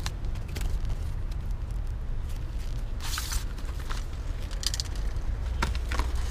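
Gloved hands handling a small cardboard box: scattered light clicks and scuffs of cardboard and paper, and a brief sliding scrape about three seconds in as the tray comes out of its sleeve. A steady low rumble runs underneath.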